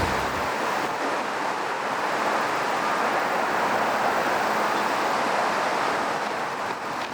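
A steady rushing noise, even and without any tone.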